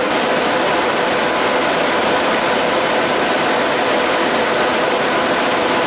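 Sun E10000 cooling fan trays running at full speed during power-up: a loud, steady rushing hum with a few steady tones in it, before the fans are throttled back.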